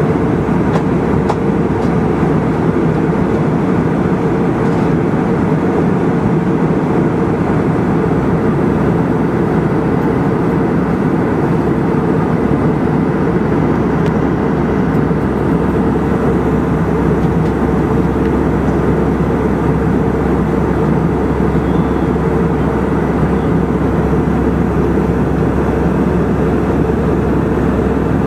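Steady cabin noise of a passenger aircraft in flight: an even, unchanging low rumble of engines and airflow, heard from inside the cabin.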